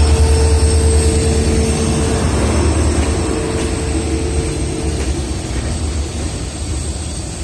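Diesel-hauled express train pulling into a station: a loud, deep, steady rumble with a thin wheel squeal that stops about five seconds in. The whole sound slowly gets quieter.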